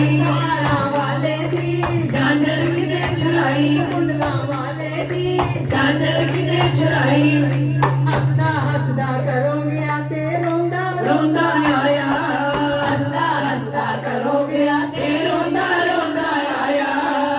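Women singing a Punjabi Krishna bhajan into microphones over a small amplifier, with rhythmic hand-clapping throughout and a steady low hum underneath.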